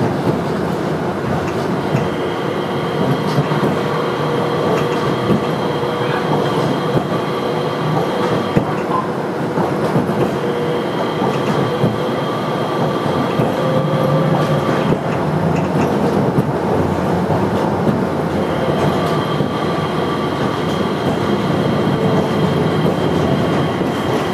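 Manyosen MLRV1000 low-floor tram running along the line, heard from inside the cabin: a steady rumble of wheels on rail with scattered clicks. A thin high tone comes and goes three times.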